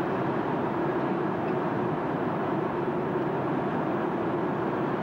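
Steady jet airliner cabin noise: the even rush of engines and airflow heard from inside the passenger cabin, with a low steady hum under it.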